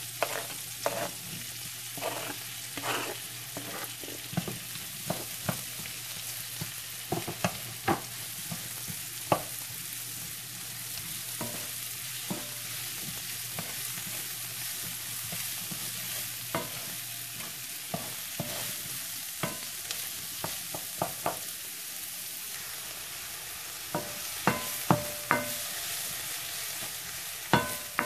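Sliced mushrooms and onions sizzling in butter in a nonstick skillet, stirred with a wooden spoon that scrapes and knocks against the pan at irregular moments. A cluster of louder knocks comes near the end.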